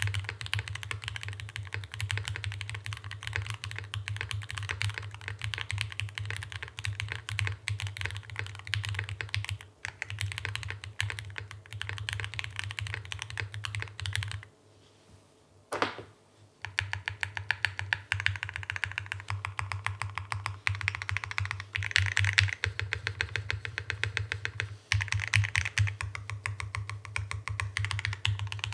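Fast, continuous typing on an Iron180 mechanical keyboard with lubed Gateron Ink Black linear switches. The typing pauses for about two seconds roughly halfway through, with a single keystroke in the gap, then resumes. Each keystroke carries extra bass that comes through the desk-mounted microphone arm.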